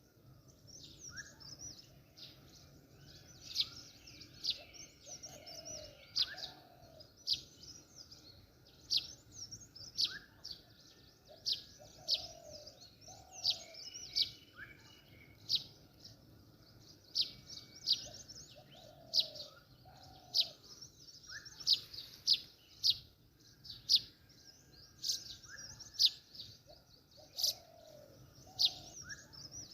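Birds chirping: many short, sharp high chirps about once a second, with lower two-note calls coming back in the same pattern about every seven seconds, like a looped birdsong track.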